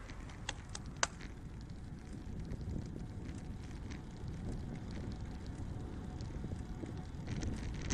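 Low rumble of wind and road noise picked up by a bicycle-mounted camera while riding slowly on pavement, with a few sharp clicks about half a second to a second in.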